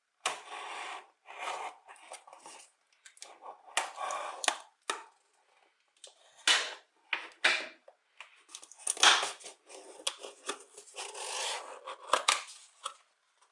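An unboxing box's packaging being opened by hand: paper and wrapping rustling and tearing in irregular bursts, with a few sharp snips and clicks.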